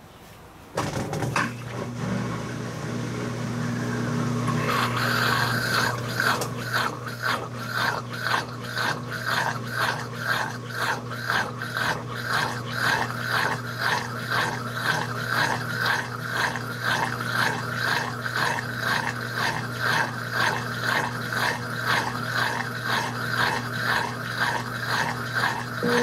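Brastemp 16 kg (BWK16) washing machine starting a spin with a wet coverlet inside: it cuts in suddenly about a second in with a steady hum, and from about four seconds the turning drum adds a rhythmic whooshing about twice a second.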